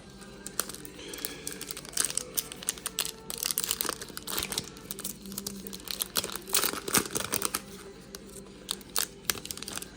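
Plastic wrapper of a 1992-93 Fleer Ultra basketball card pack being torn open and crinkled: a quick run of sharp crackles and rustles.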